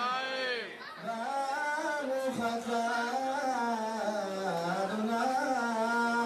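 A man's voice chanting a slow, ornamented Jewish liturgical melody, holding long wavering notes with melismatic turns, with a brief breath about a second in.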